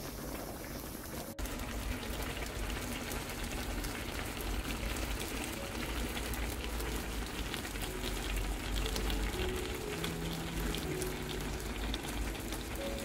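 A pot of kimchi and pork-belly rolls in broth bubbling at a boil: a dense, steady bubbling and popping, with a short break about a second in.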